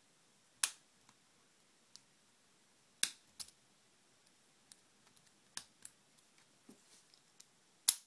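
Lock picks working the pin stack of an Abus 64/40 padlock during single-pin picking: sharp, irregular metallic clicks, a handful of louder ones among fainter ticks, the loudest near the end.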